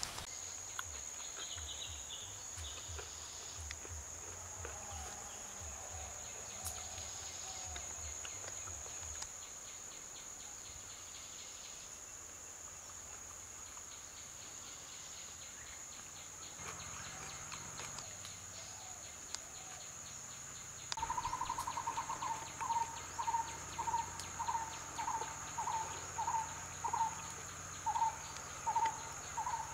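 Outdoor insect chorus holding one steady high-pitched trill. About two-thirds of the way in, a short call joins it, repeated about one and a half times a second and louder than the trill.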